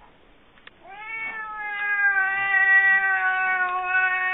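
Domestic cat giving one long, drawn-out yowl that starts about a second in: a frightened, hostile cry at a vacuum cleaner pushed toward it.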